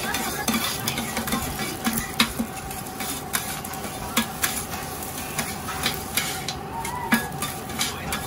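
Stir-frying in a wok: food sizzling under a steady hiss, while a metal spatula scrapes and knocks against the wok in irregular sharp clicks.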